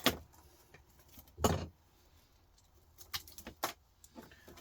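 A few short knocks and clicks of small scrap metal parts and tools being handled on a workbench, the loudest about one and a half seconds in.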